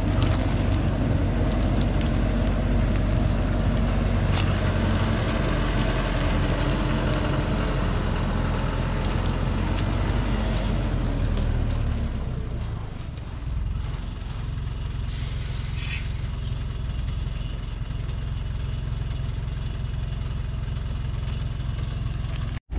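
Engine of a heavily loaded log truck running steadily under load as it climbs a dirt forest slope. It drops a little in loudness about halfway through, and a short hiss of air sounds about two-thirds of the way in.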